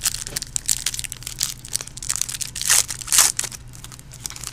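Foil wrapper of a trading-card pack crinkling and crackling as hands tear it open and pull the cards out, with a couple of louder crackles about three seconds in.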